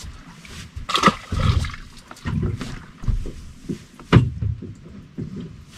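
Irregular thumps and knocks of someone moving about a boat deck and handling gear, with two sharper knocks about a second in and about four seconds in.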